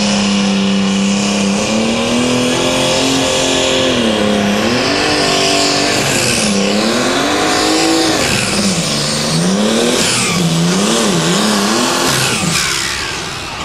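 Super stock pulling tractor's engine at full throttle under load, dragging the sled. The engine note holds steady for a couple of seconds, then climbs and swings up and down several times as the revs surge and sag, with a high whine above it. Near the end the note falls away and it gets quieter.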